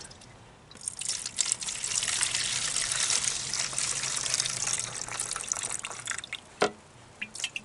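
Old gasoline poured out of a removed lawn-mower fuel tank into a jar, a steady gush starting about a second in and tapering off, to check the fuel for water. A short knock follows near the end.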